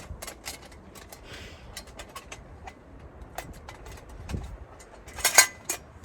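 Thin metal parts of a folding camp stove being fitted together: a scatter of light clicks and clinks as the panels slide into their slots, with a louder clatter about five seconds in.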